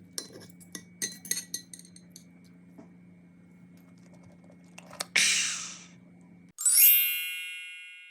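Cutlery and dishes clinking several times in quick succession over the first two seconds. About five seconds in comes a loud, short swish, and then a bright ringing chime that slowly fades out.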